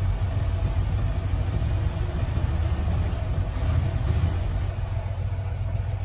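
Dump truck's diesel engine running steadily with a low rumble while the hydraulic hoist raises the loaded bed to tip out soil.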